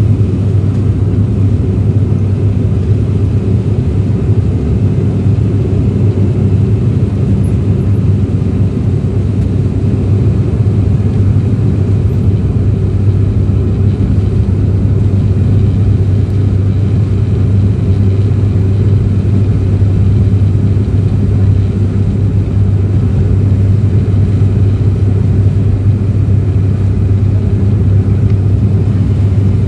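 Cabin drone of a propeller airliner: the engines and propellers run steadily with a strong low hum and an even rush of air noise, as the plane descends.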